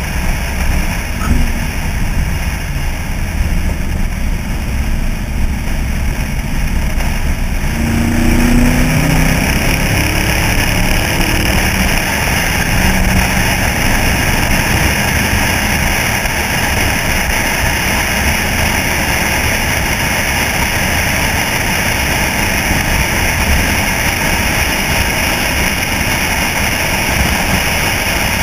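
Wind and road noise on a GoPro mounted outside a 1964 Chevy C-10 pickup as it drives, with the truck's engine running underneath. The rushing grows louder about eight seconds in and then holds steady.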